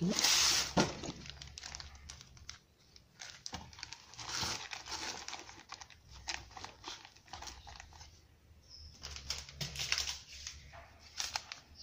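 Rustling and crinkling of plastic packaging and nylon pouch fabric as items are handled and tucked into a tactical first-aid pouch, with scattered small clicks and taps. The loudest rustle comes in the first second.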